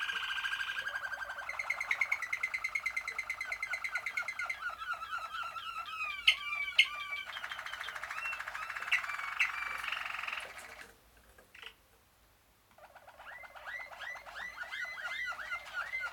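Malinois (Waterslager) canaries singing: long, rapid rolling trills and runs of quick repeated notes. The song breaks off for about two seconds about two-thirds of the way through, then starts again.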